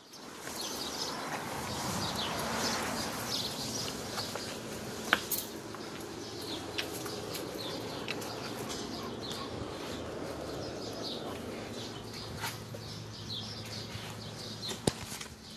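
Birds chirping over steady outdoor background noise, with a few sharp clicks and knocks, one about five seconds in and another near the end.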